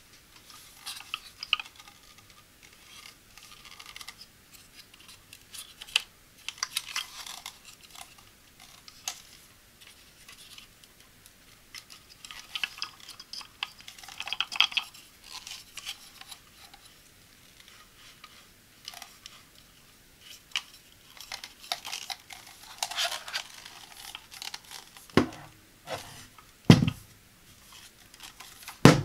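Hands handling a camera tripod stand: scattered clicks, rattles and rubbing from its plastic pan head and leg joints. A few louder knocks come near the end as the legs are swung open.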